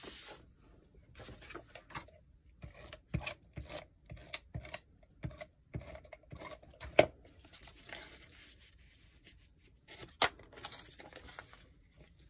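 Paper and cardstock pieces being slid, shuffled and pressed down on a desk, with scattered taps, the sharpest about seven seconds in. A few short raspy passes of a tape runner laying adhesive on the paper.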